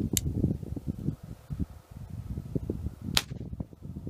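Crosman E9A .22 CO2 pistol: a light click as the bolt is worked near the start, then a single sharp shot about three seconds in. Wind buffets the microphone throughout.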